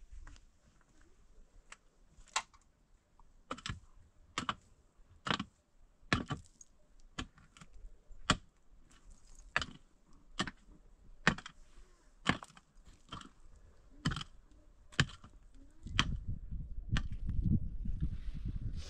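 A hand tool striking hard material in a steady series of sharp blows, a little under one a second. Near the end a louder low rumbling noise takes over.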